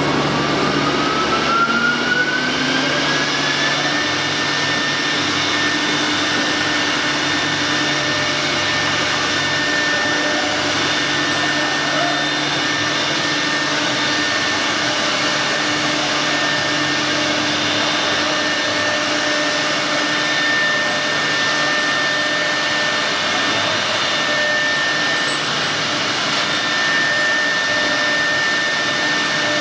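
CNC wood router's spindle spinning up, its whine rising in pitch over the first four seconds, then running at a steady high whine over a constant rushing noise.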